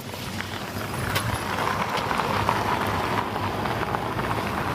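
A car driving past on the street: tyre and engine noise that builds over the first second and then holds steady.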